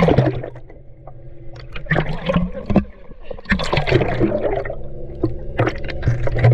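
A splash as a person plunges into the sea, then muffled churning and bubbling of water heard with the camera underwater, under a low steady hum.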